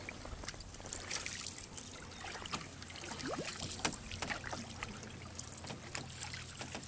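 Canoe paddles stroking through calm water: irregular small splashes, drips and trickles, with scattered light knocks against the hulls.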